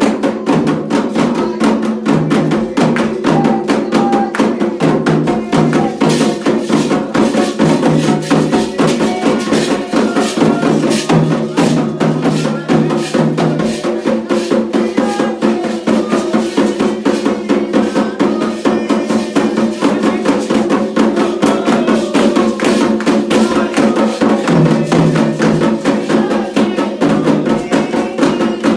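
Candomblé ceremonial music: hand drums and percussion playing a fast, steady, dense rhythm without a break, with sustained pitched voices or tones underneath.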